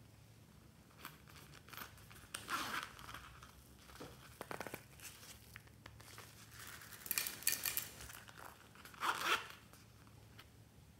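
Zipper on a small fabric coin purse being drawn open, a quick clicking run of its teeth, with rustling as the purse is handled.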